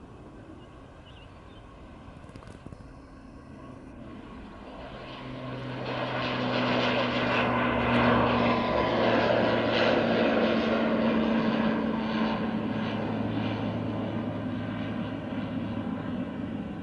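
Airliner engines passing: the sound swells over a few seconds to its loudest about eight to ten seconds in, then slowly fades, its steady hum dropping slightly in pitch as the aircraft goes by.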